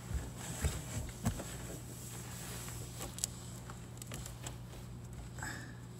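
Light knocks and rubbing from handling the rear window glass and its rubber seal as they are worked into a Toyota Land Cruiser 80 series tailgate, with a short squeak near the end, over a steady low hum.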